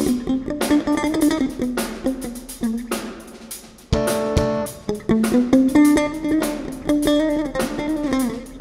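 Jazz band playing: an electric bass guitar plucked fingerstyle carries a melodic run of notes high in its range, with drum kit and cymbal strokes behind it.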